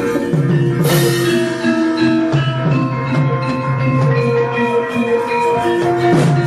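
Javanese gamelan playing: tuned metal keyed instruments ring out overlapping steady notes over a low sustained note, with two sharp strikes, about a second in and near the end.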